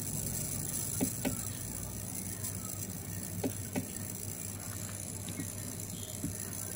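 Switching transformer on a Polytron 24-inch LED TV's power supply board ticking and crackling irregularly, a few sharper clicks over a faint low hum. This is the start-up crackle that the set makes when first switched on, said to fade once the TV has been running about an hour; the technician suspects the electrolytic capacitors, where such faults usually lie, or else the transformer itself.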